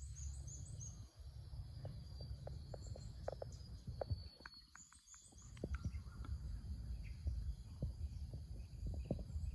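Outdoor garden ambience: a steady high insect drone, short bird chirps and scattered ticks over a low rumble, quieter for a moment about halfway through.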